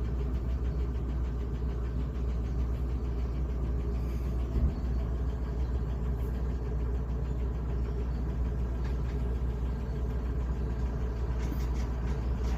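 Vehicle engine idling steadily with an even low rumble, and one short knock about four and a half seconds in.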